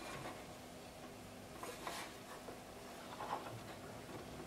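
Quiet room tone: a faint steady hum with a few soft ticks and rustles, about a third of the way in and again past the middle.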